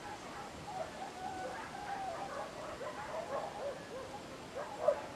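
Many short, faint animal calls, chirps and yelps, over a steady outdoor hiss, with one louder call near the end.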